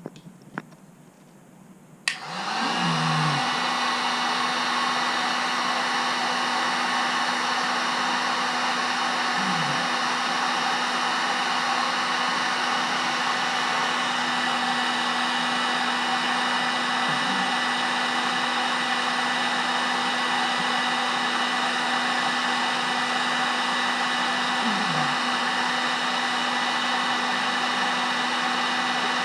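Electric heat gun switched on with a click about two seconds in, then running steadily: an even fan-and-blower whoosh with a steady hum. It is heating a solder-seal heat-shrink connector to melt its built-in solder into the wires.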